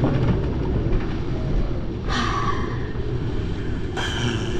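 Steady low rumble of storm wind buffeting a sailboat at anchor, with two brief hissing rushes about two and four seconds in.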